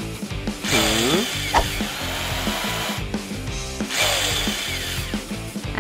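Cordless drill driving screws into the corners of a wooden-bar frame, in two runs of about two seconds each.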